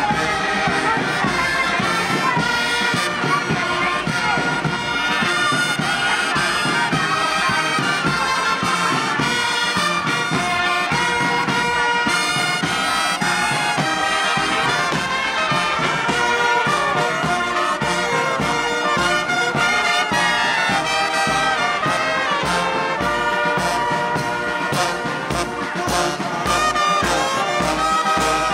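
Marching brass band playing: trumpets, saxophone and sousaphones over bass and snare drums. The drum beat stands out more toward the end.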